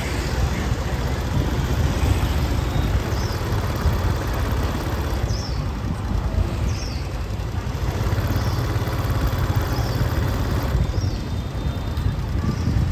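Busy street ambience: a steady rumble of motorbike and car traffic, with a few faint short high chirps now and then.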